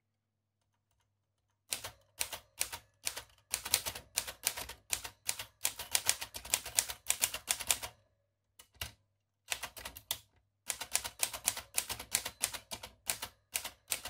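1937 Remington Home Portable typewriter being typed at a steady pace: quick, sharp typebar strikes against the platen, in two runs with a short pause and a couple of single clacks between them. The typing starts about two seconds in.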